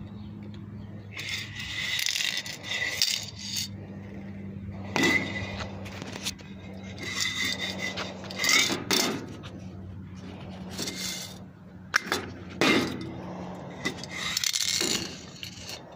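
An aerosol spray can being handled and rubbed against a metal mesh table: irregular scrapes and a few sharp knocks, over a steady low hum.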